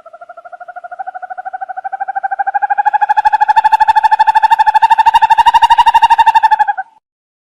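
An owl giving a long, rapid trill: a fast run of even notes that rises slightly in pitch and grows steadily louder, then stops suddenly near the end.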